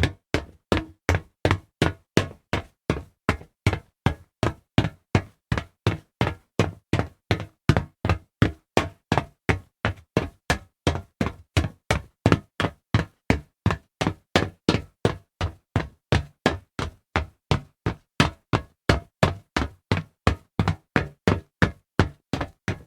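Footsteps walking fast over a hollow metal surface: quick, evenly spaced knocking steps, about two and a half a second, each with a low, hollow boom.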